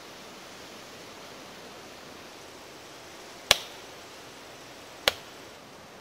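Steady background hiss, broken twice by a sharp click about a second and a half apart; the clicks are by far the loudest sounds.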